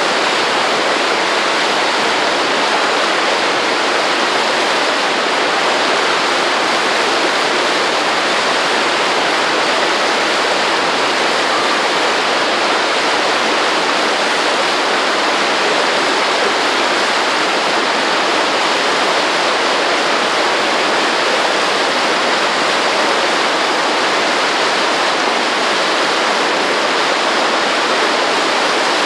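Steady rushing of falling water, a constant loud wash of noise.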